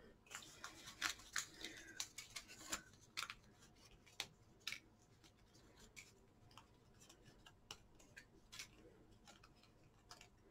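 Faint crackles and small clicks of thin cardstock as a die-cut lantern shape is pressed out of its surrounding sheet, most of them in the first five seconds.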